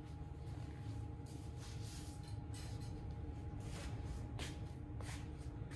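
Quiet room tone: a steady low hum with a few faint clicks and rustles.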